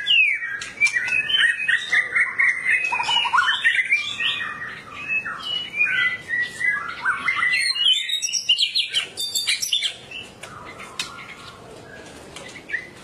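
White-rumped shama of the Medan type singing a fast, unbroken stream of varied whistled notes and pitch glides, thinning out and going quieter about ten seconds in.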